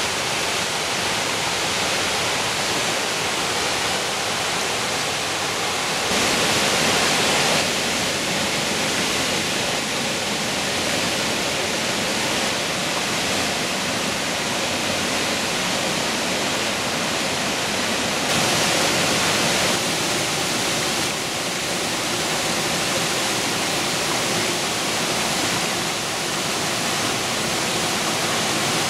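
Mountain stream rushing and splashing over boulders and small cascades, a steady rush of water. It grows briefly louder and brighter about six seconds in and again about eighteen seconds in.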